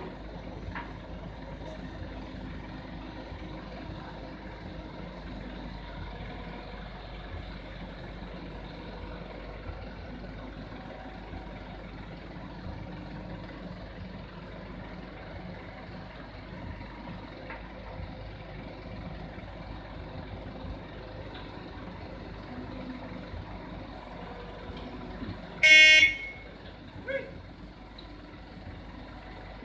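Heavy-equipment diesel engine running steadily, with one short, loud vehicle-horn toot about four seconds before the end.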